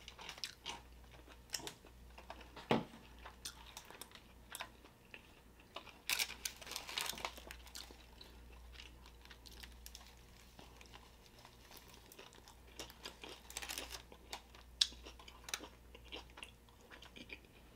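Close-miked chewing of a burrito, with small wet mouth clicks and soft crinkling of its aluminium foil wrapper. A louder spell of crinkling and crunching comes about six seconds in and again around fourteen seconds.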